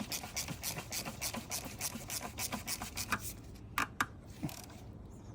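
A ratchet wrench clicking in an even run, about four clicks a second, then a few separate clicks, as the plastic oil filter housing cap on a Jeep 3.6-litre V6 is screwed down and snugged.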